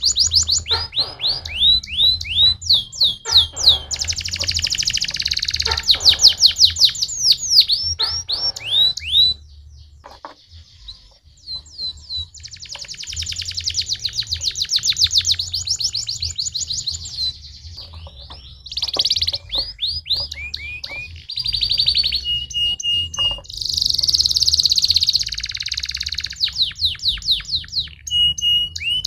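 Domestic canary singing in fast trills and rolls of repeated high down-sweeping notes, with a short break about ten seconds in and a few brief held whistle notes later. A faint low hum lies underneath.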